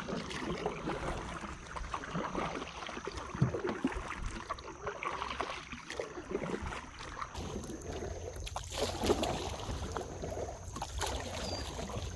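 Kayak paddle strokes dipping and splashing in the water at an irregular pace, with water moving along the hull of a sit-on-top fishing kayak.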